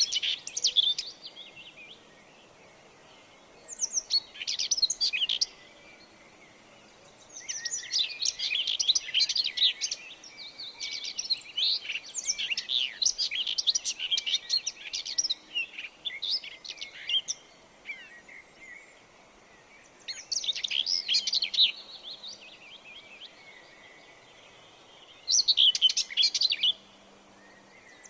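Birds chirping in phrases of rapid high twittering notes, with quiet gaps of one to two seconds between phrases. The longest phrase runs about ten seconds through the middle.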